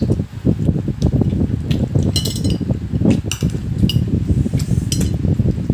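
A spoon clinks against dishes and a plastic food container several times in quick, irregular strikes, over continuous low rumbling noise.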